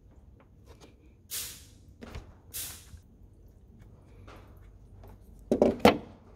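Hand tools and metal bolts being handled while the water pump is unbolted: two short scraping sounds, then a quick cluster of sharp metal knocks near the end.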